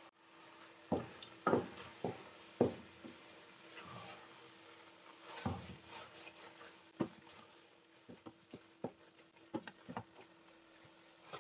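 Wooden spatula stirring grated carrot halwa in a steel pot: irregular knocks and scrapes of wood against the metal, over a faint steady hum.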